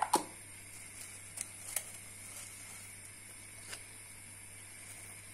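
Faint steady hiss and low hum of a quiet kitchen, with a few soft clicks about a second and a half in and again near four seconds.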